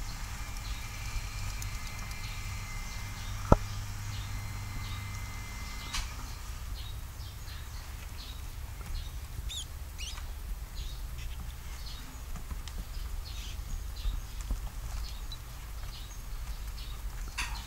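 A mother rat shuffling and scratching in wood-shaving bedding among her newborn pups, with short high squeaks and chirps scattered through, over a steady low hum. One sharp click about three and a half seconds in is the loudest sound.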